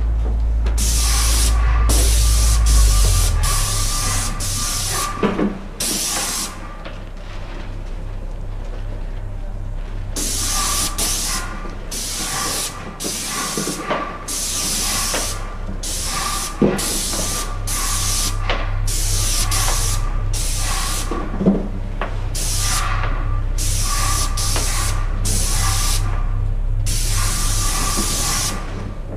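Airless paint spray gun with a 310 fine-finish tip at around 1400 PSI spraying primer onto banister spindles in short hissing bursts, the trigger pulled on and off over and over, with a pause of a few seconds about a quarter of the way in. A low steady hum runs underneath.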